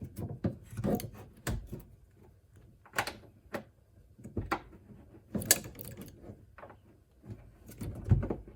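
Scattered metal clicks and knocks of bolts and tools being handled while the door lock is positioned and bolted back into a car door, with irregular sharp taps about a second apart.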